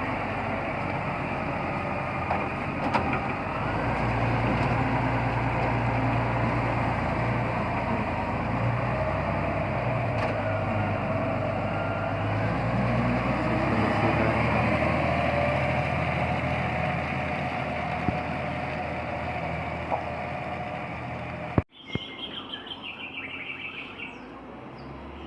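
Bulldozer's diesel engine running under load as it pushes rubbish, its pitch rising and falling in places, with high chirps over it. About three-quarters of the way through, the sound cuts off abruptly and gives way to a quieter stretch with short high chirps.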